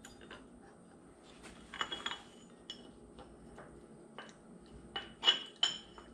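Light metallic clinks and taps of a steel wheel puller's plate and bolts being fitted onto a snowmobile suspension idler wheel. Scattered single clinks with a short ring, coming closer together near the end.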